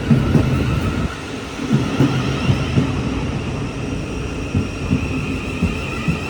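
Train moving through the station: a loud, low rumble of wheels on rail with irregular clunks, and a steady whine that grows stronger as it goes.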